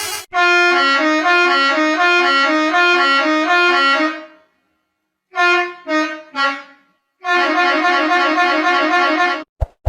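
Musical multi-tone bus horn playing a fast two-note warble for about four seconds, then three short falling blasts, then the warble again.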